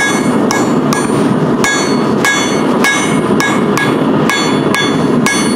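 Blacksmith's diagonal-peen hammer striking on the anvil, spreading the blade of a railroad-spike leaf: a steady run of blows, about two to three a second, each one ringing.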